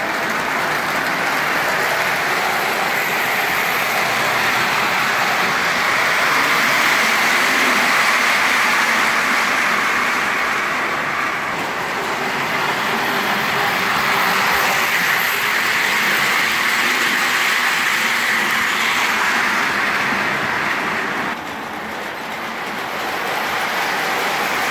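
Lionel O-gauge model trains, among them an MPC-era Pennsylvania GG1 electric locomotive pulling passenger cars, running on three-rail track with a steady rolling rumble of wheels and motors. The sound drops a little about 21 seconds in, then comes back.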